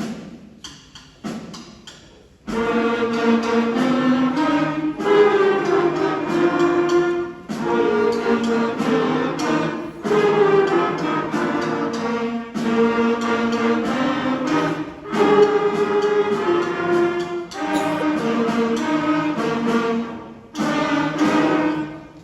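School concert band playing, brass and woodwinds holding chords in phrases of about two and a half seconds, each with a brief break between. The first two seconds are quieter and made of short, detached notes; the full band comes in about two and a half seconds in.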